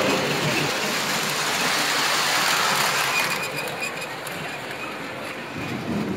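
Model subway train running on its elevated track: a steady rolling rumble and hiss that eases off about three and a half seconds in.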